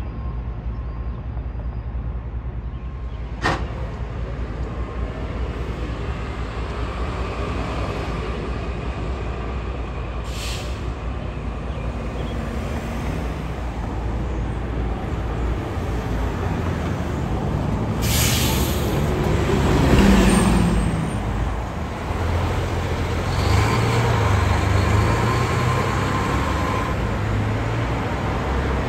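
Diesel city buses in street traffic. Air brakes hiss in short bursts, the loudest about eighteen seconds in, and a bus engine rises as it pulls away a couple of seconds later, then keeps running under the traffic noise. A single sharp click comes a few seconds in.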